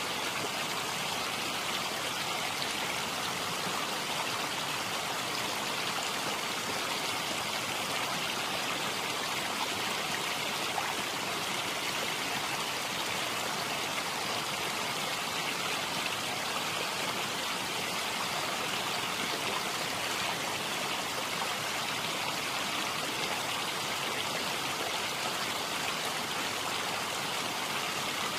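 Steady rushing noise of running water, even and unchanging throughout.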